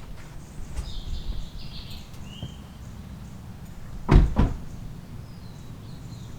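A door shutting with a heavy double thud about four seconds in, over a low steady background rumble.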